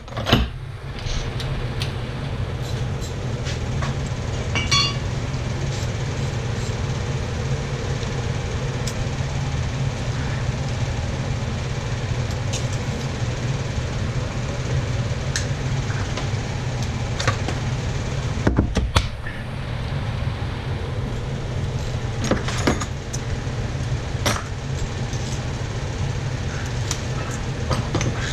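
A steady low hum, with now and then a sharp clink or knock of tools and metal parts during an engine teardown.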